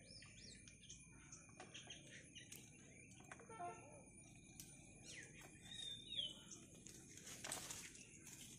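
Near silence with a faint bird chirp about six seconds in, and light rustles and snaps of chilli plants being picked by hand, the loudest a brief rustle near the end.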